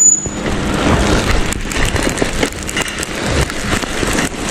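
Loud, steady rushing noise with uneven low rumbling, the kind heard outdoors with wind on the microphone or rolling on a wet road. A short high beep sounds at the very start.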